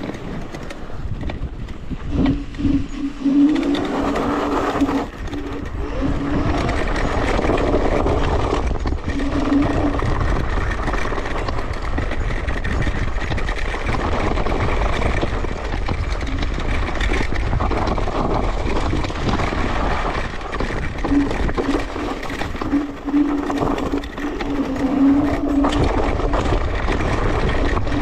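Electric scooter being ridden off-road: a steady motor whine that comes and goes, over a constant rumbling rush.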